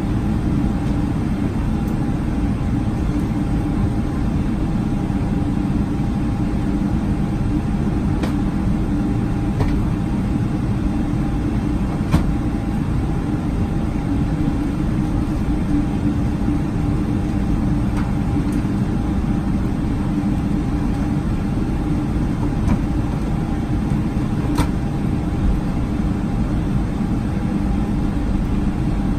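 Cabin noise of a Boeing 777-300 taxiing: the twin turbofans' steady drone at low taxi power, heard from inside the fuselage, with a few light knocks spaced several seconds apart.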